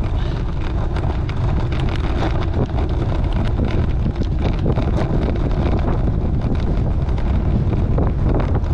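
Wind buffeting the microphone of a camera on a moving bicycle: a loud, steady low rumble with scattered faint clicks.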